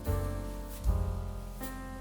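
Background music: a piano or keyboard tune with a steady bass line.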